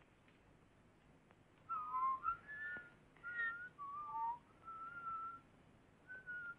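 A person whistling a tune, starting about two seconds in: short phrases of clear single notes that step and slide in pitch.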